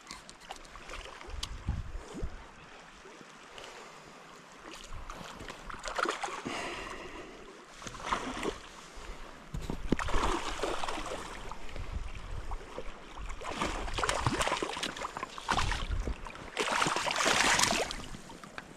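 River water flowing and splashing, in irregular louder rushes.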